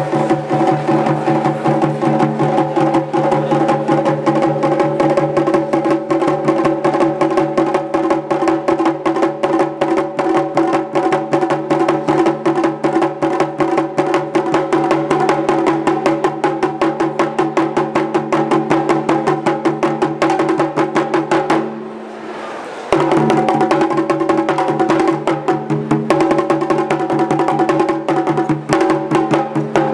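Taiko drumming: small rope-tensioned shime-daiko struck in fast, continuous sharp cracks over a larger drum, the strikes blending into a ringing drone. The playing breaks off briefly about two-thirds of the way through, then resumes at full strength.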